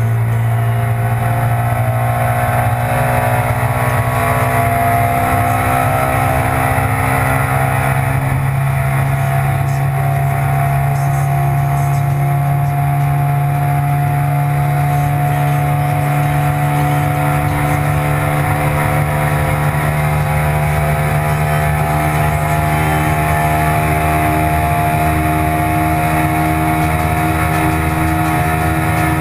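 Italika RT 650 (a rebadged Hyosung GT650R) V-twin engine running hard at high speed in a top-speed run, its pitch rising slowly and steadily as the bike keeps accelerating.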